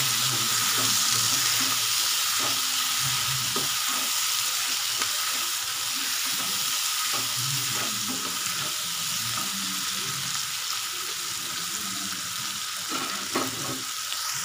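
Sliced onions and tomatoes sizzling in hot oil in a nonstick kadai, stirred now and then with a spatula. The tomatoes are being sautéed until soft, and the sizzle grows slowly quieter.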